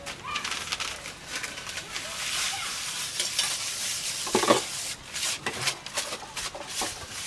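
Twigs and dry palm fronds crackling and hissing as they burn in a small cylindrical wood stove, with many sharp pops throughout. A brief louder sound about four and a half seconds in.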